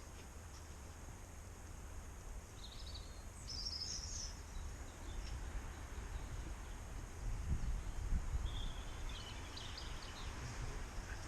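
Outdoor ambience: a steady low rumble that swells about seven seconds in, with two short bursts of bird chirping, a few seconds in and again near the end.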